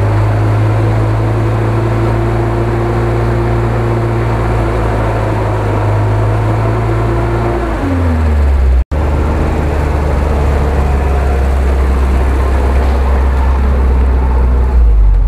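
UAZ-469 in deep mud hauling itself out on its front winch: a loud, steady mechanical drone. Its pitch drops about eight seconds in, as the load comes on, and then holds lower.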